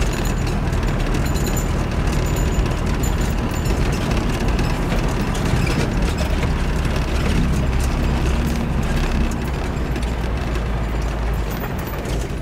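Four-wheel-drive running along a rough dirt track, heard from inside the cab: a steady low engine and tyre rumble with frequent knocks and rattles from the bumps.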